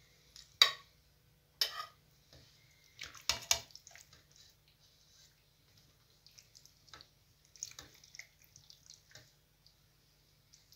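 A wooden spoon scooping cooked cabbage and knocking against a stainless steel pot and a plate: a few sharp knocks in the first four seconds, then soft wet squelching as the cabbage is spooned onto the plate.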